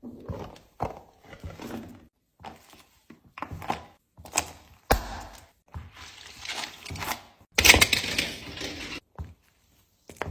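Plastic fidget toys being handled and set down: a series of short knocks, clicks and rustling bursts, broken by brief silent gaps.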